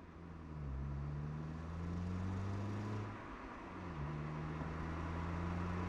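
A motor running with a low, steady droning hum and a hiss above it; the hum drops in pitch about half a second in and again around three seconds, then rises near four seconds.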